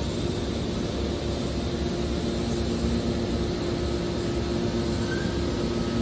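Hydraulic scrap metal baler's power unit running: a steady drone of motor and pump with a constant hum.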